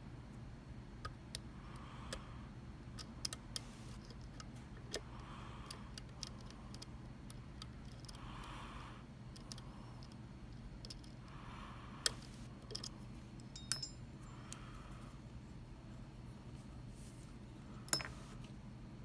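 Dimple lock picks working in a Mul-T-Lock MT5 dimple lock: light, irregular metallic clicks and ticks of the pick against the pins, with a sharper click about twelve seconds in and another near the end.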